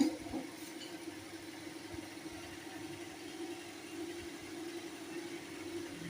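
An electric motor running with a steady hum, with a short knock at the very start.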